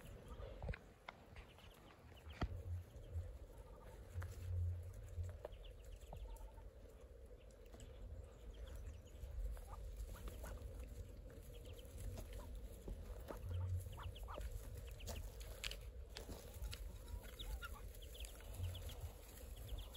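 Muscovy ducklings peeping softly in many short, scattered calls as they forage, with a few brief low rumbles of wind or handling on the microphone.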